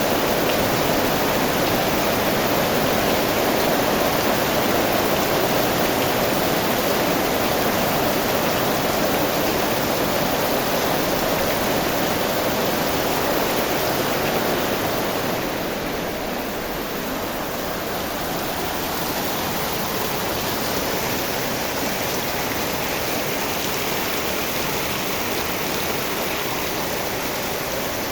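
Steady heavy rain falling, a dense even hiss of water that eases slightly about halfway through.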